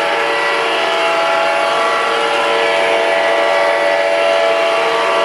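Model diesel locomotive's sound-system horn held in one long steady chord over the noise of the running train. The horn comes from the Proto-Sound 2.0 sound system of an MTH Premier Norfolk Southern GP35.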